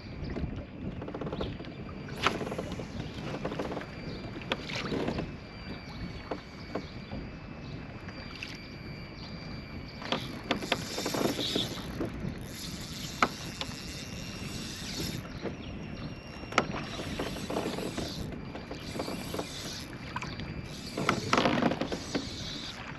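Choppy lake water lapping and slapping against a fishing kayak's hull, with wind, and a few sharp knocks scattered through.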